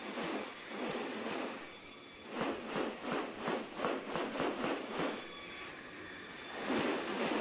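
Forest ambience with a steady high-pitched insect drone. From about two seconds in to about five seconds in, a run of rhythmic rustling swishes comes about three a second.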